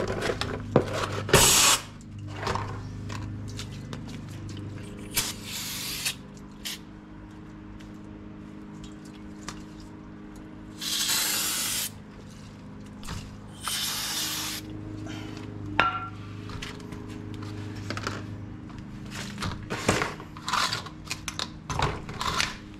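Aerosol brake cleaner sprayed onto a disc brake rotor to strip oil and grease off it: several hissing bursts, the longest two near the middle lasting about a second each. A few light clicks of hand tools come in the second half, over a steady low hum.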